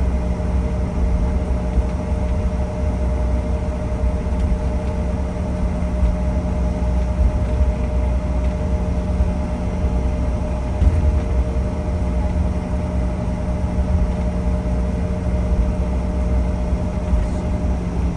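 Cabin noise inside a CRJ-900 regional jet on the ground after landing, its rear-mounted turbofan engines at idle: a steady low rumble with a constant hum over it and one brief bump about eleven seconds in.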